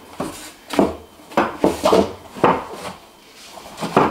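Beadboard panel knocking and scraping against the wall and butcher-block countertop as it is pushed and slid into place: several sharp, irregular wooden knocks with rubbing between them.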